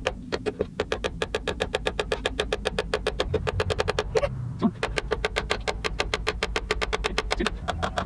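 Rapid, even hammer taps on a nail going into the cedar side of a birdhouse, about nine a second, with a brief pause about four seconds in.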